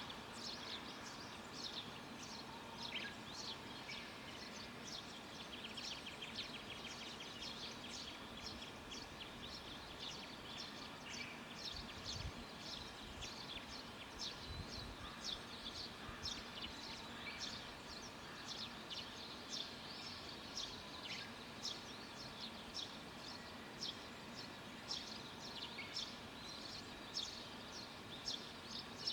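Wild birds chirping and calling, many short high notes throughout with a quick trill about six seconds in, over a faint steady rural background.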